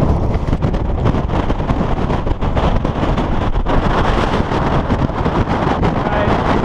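Wind buffeting the camera microphone: a loud, continuous rumble.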